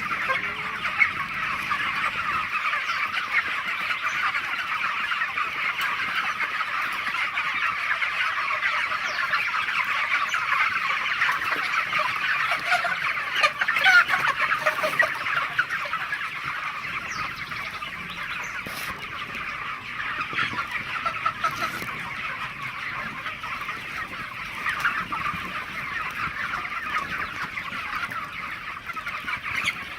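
A large flock of broiler chickens clucking and peeping together, many short overlapping calls in a dense, steady chatter, with a few louder calls standing out about halfway through.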